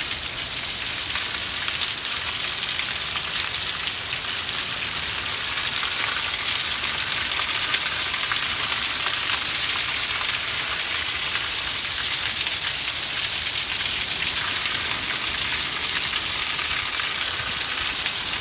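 Heavy rain pouring down, a steady loud hiss, with water spilling over a roof gutter that is clogged and overflowing.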